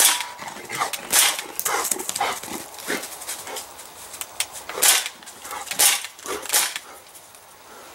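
A dog barking, several short, sharp barks with pauses between them.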